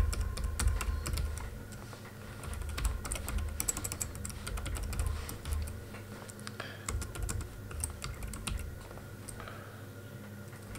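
Typing on a computer keyboard: irregular runs of keystroke clicks with short pauses between them.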